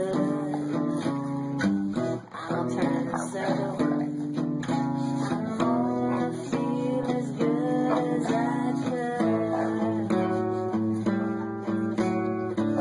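Acoustic guitar music.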